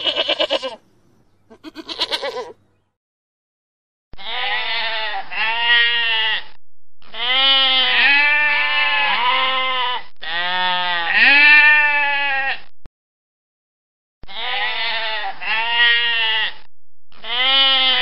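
Markhor bleating: two short quavering bleats, then after a pause a run of longer, repeated bleats in segments that start and stop abruptly with short silent gaps between them.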